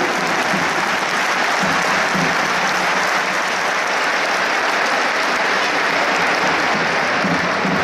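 Football stadium crowd applauding, a steady dense sound of many hands clapping.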